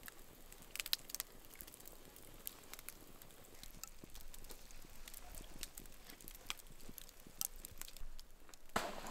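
Wood campfire crackling, with irregular sharp pops and snaps over a faint hiss, the loudest pop about a second in. A short rush of noise near the end.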